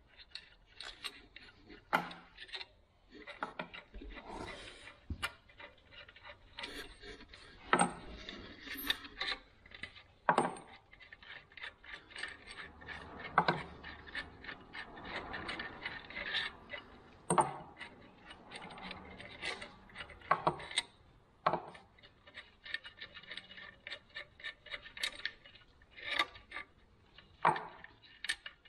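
Hand tools working on metal parts: irregular clinks and sharp knocks every few seconds, with scraping and rubbing in between.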